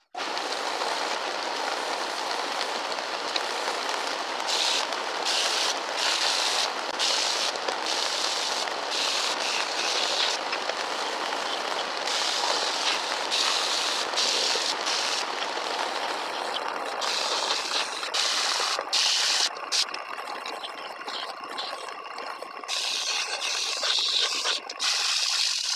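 Bench-mounted belt sander running as small wooden corner brackets are pressed against the belt. The machine's steady hiss is joined by many short, brighter sanding strokes each time the wood meets the belt.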